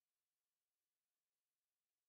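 Near silence: an essentially soundless audio track.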